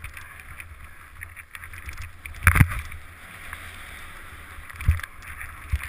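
Wind rushing over a helmet-mounted camera and a steady hiss of sliding down through powder snow, with a few dull thumps: the loudest about two and a half seconds in, two more near the end.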